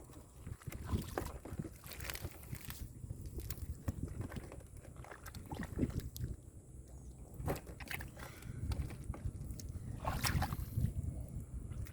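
Shallow muddy water sloshing and splashing irregularly as hands rummage through it and the moss for fish, with scattered small clicks and slaps.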